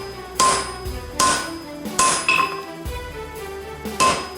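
Hand hammer striking hot steel on an anvil while forging a knife blade from a pipe wrench jaw: four ringing blows, three in a steady rhythm under a second apart, then a pause before the fourth near the end.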